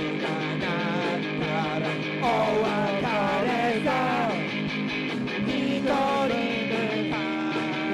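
Rock band music with electric guitar, its melody wavering and sliding down in pitch over sustained chords.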